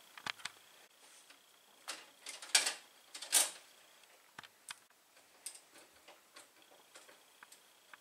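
Wire strippers clicking and snipping as insulation is stripped off 12-gauge electrical wire, with light ticks and rustles as the wire is handled. A few louder snips come about two to three and a half seconds in.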